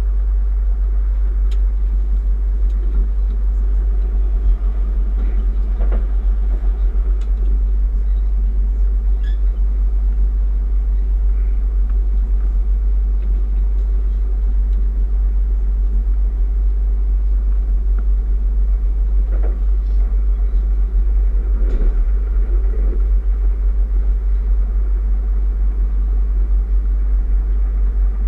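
Bombardier electric train running at speed, heard from inside the carriage: a steady deep rumble with occasional faint knocks from the track.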